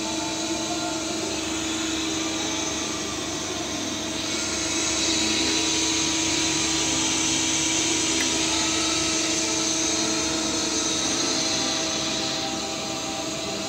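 Steady mechanical hum and whine of a powered-up Mazak Quick Turn Nexus 350M CNC lathe, with several held tones. A louder hiss joins about four seconds in and fades out near the end.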